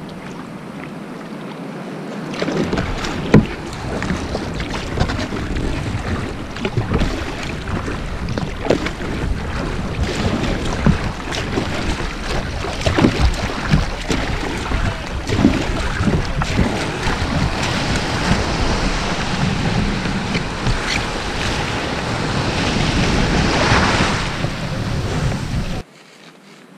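Kayak paddle strokes splashing in the sea, with wind rumbling on the microphone and water washing around the hull. The sound grows loud about two seconds in, then cuts suddenly near the end to a quieter wash of surf.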